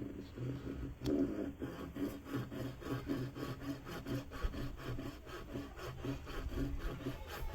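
Handsaw cutting through a wooden board in steady back-and-forth strokes, about three to four a second.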